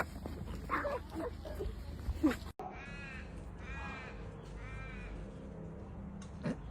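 Three short, high animal calls about a second apart, each rising and falling in pitch.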